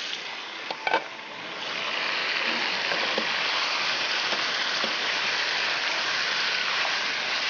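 Marinated chicken pieces sizzling in hot oil in a karahi as they are stirred with a spatula, being browned (bhuna). A couple of light clinks about a second in, then the sizzle swells and holds steady.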